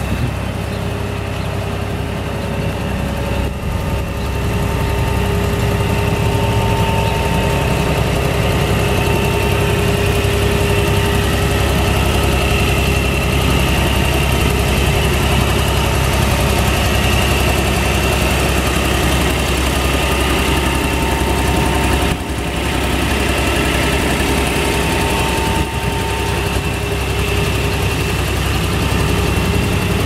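New Holland LS180 skid steer's diesel engine running steadily, a low rumble with a few steady whining tones over it, getting a little louder a few seconds in.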